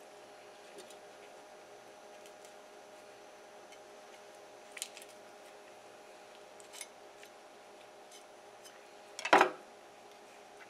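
Small clicks and taps of a knife and gloved hands working a raw flounder on a wooden cutting board, with one louder clatter about nine seconds in, over a faint steady hum.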